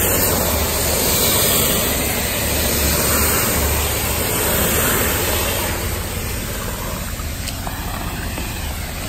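Pressure washer running and spraying water on the concrete pool floor: a steady hiss, a little quieter after about six seconds.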